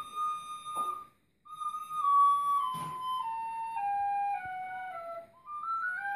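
Plastic recorders playing a scale in unison, one held note at a time. After a short break about a second in, they step down the scale note by note, pause briefly, then start climbing back up near the end.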